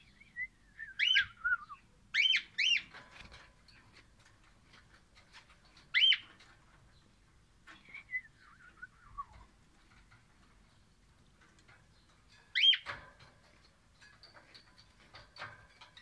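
Caged Pennant's (crimson) rosella singing: loud, clear whistled notes, some sliding down in short runs of falling notes, others single ringing whistles, with pauses of a few seconds between phrases.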